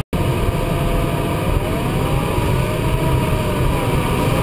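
Steady rush of airflow in the cockpit of a DG-300 glider in flight. Over it runs a thin, continuous electronic tone from the variometer that slides slowly up and down in pitch as the climb rate changes. The sound drops out for a split second at the very start.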